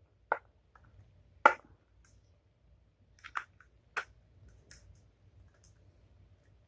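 Plastic clicks and snaps from a PS4 controller's shell being pried apart at its clips: four sharp clicks in the first four seconds, with fainter ticks between.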